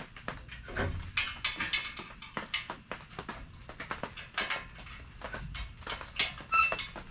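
Hand-tool work on an engine: rapid, irregular clicks and clinks of a ratchet wrench and metal parts as bolts are worked, with a brief squeak near the end.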